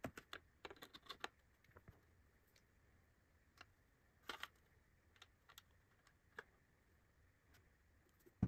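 Faint, scattered clicks and taps of hands handling a hollow 3D-printed plastic fuselage and a glue squeeze bottle: a quick run of clicks in the first second or so, then a few single ones spread out. Otherwise near silence.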